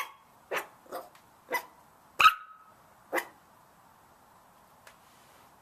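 Small white puppies barking: six short, sharp barks over the first three seconds, the loudest a little over two seconds in.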